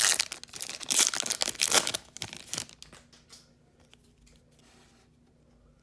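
Hockey card pack wrapper being torn open and crinkled, loud for about two and a half seconds, then a few faint rustles before it goes quiet.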